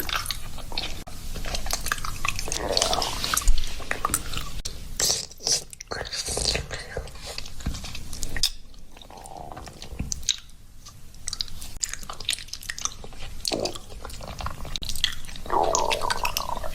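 A hungry stomach gurgling, heard close up: dense irregular crackling and squelching, with a few short gurgling growls.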